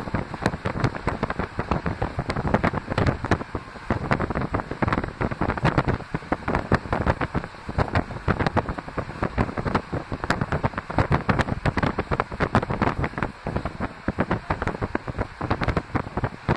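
Wind buffeting the microphone with rapid, irregular gusts, over the running noise of a moving diesel-hauled passenger train.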